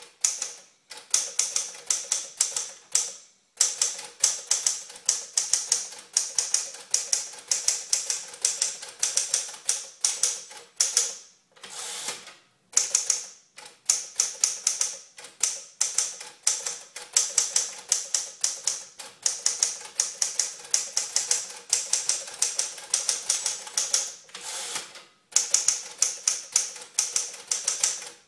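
Smith-Corona Clipper portable typewriter being touch-typed: fast runs of sharp key strikes, many a second, broken by a few short pauses.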